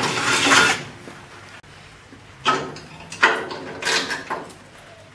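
Electric drill boring through the sheet steel of a car's radiator support, opening a pilot hole out to 17/64 inch, stopping about a second in. Then about three short metallic clunks and scrapes as a steel radiator bracket is handled into place.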